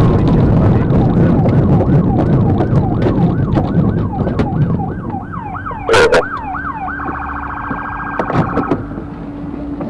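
Police cruiser siren in quick rising-and-falling yelp sweeps over road and engine noise that fades as the car comes to a stop. A sharp bang comes about six seconds in, then a fast warbling siren tone for under two seconds.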